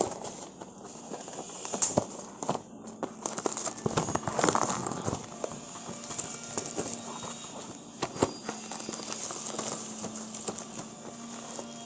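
A shrink-wrapped cardboard frozen pizza box being handled against a bag: crinkling and rustling of plastic and paper with irregular clicks and taps, busiest about four to five seconds in.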